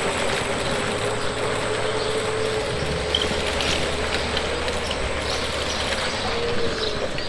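City traffic noise: a vehicle running steadily, with a faint whine held over a low hum.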